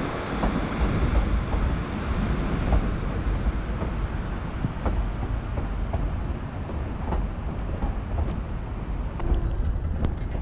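Narrow-gauge passenger train in motion, heard from aboard: a steady rumble of wheels running on the rails, with scattered short clicks and knocks.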